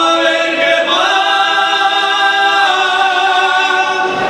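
Male mariachi singer holding one long sung note in full voice, the pitch stepping up slightly about a second in, breaking off near the end.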